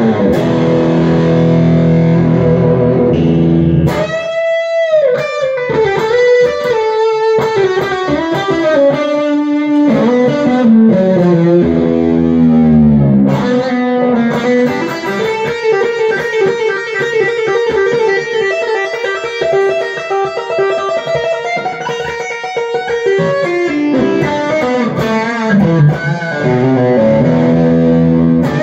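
Harley Benton Fusion electric guitar with alnico pickups, played as a lead line of sustained single notes with bends that glide in pitch. About twelve seconds in, the pitch slides a long way down.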